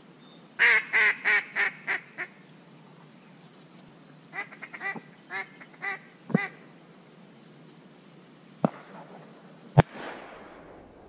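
Duck quacking in two series: about six loud quacks that fade away, then a quicker run of about seven shorter quacks. Near the end come two sharp cracks, the second one the loudest, followed by a fading echo.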